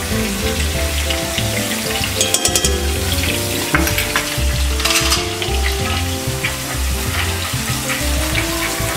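Seafood mix frying in oil in a cast-iron skillet, sizzling steadily while a spatula stirs and scrapes the pan, with clusters of scraping clicks about two and five seconds in. Background music plays underneath.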